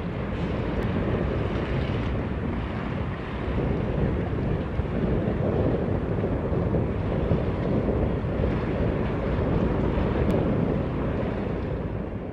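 Steady wind buffeting the microphone over the wash of choppy harbour water, a low rumbling hiss.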